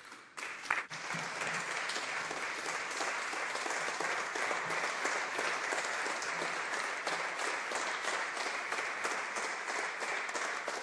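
A roomful of Members of Parliament applauding steadily for about ten seconds at the close of a speech, starting just after the speaker's thanks and beginning to die away near the end.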